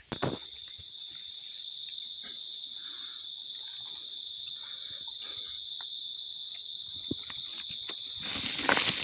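An insect trilling steadily at one high pitch, begun by a sharp click right at the start. There is a loud burst of rough noise near the end.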